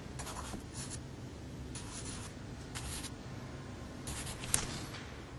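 A graphite pencil scratching on paper as digits are written, in about five short strokes, over a steady low hum.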